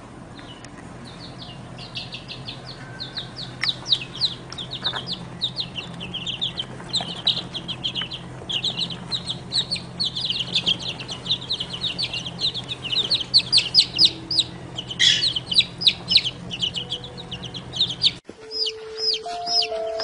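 Baby chicks peeping: a dense, continuous run of quick, high cheeps, each dropping in pitch, over a low steady hum. Music comes in near the end.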